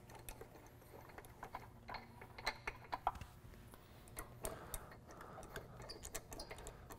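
Faint, irregular ratchet clicking as lug nuts are backed off a wheel with a socket, some clicks coming in quick little runs.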